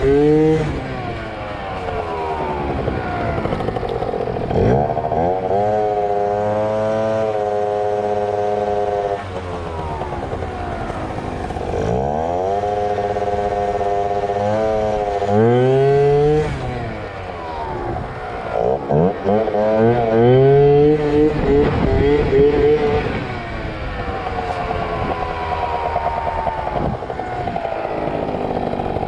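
Two-stroke Yamaha ZR Evo scooter engine revving up hard, holding high revs for a few seconds and dropping back, five or six times over.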